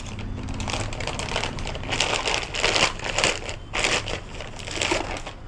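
Clear plastic bag crinkling and rustling in irregular handfuls as it is pulled off an air pistol, louder from about two seconds in.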